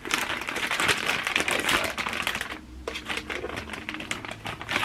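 Plastic wrapping crinkling and crackling as it is handled and pulled off a new camera, with quick clicking rustles that are densest in the first half and thin out after.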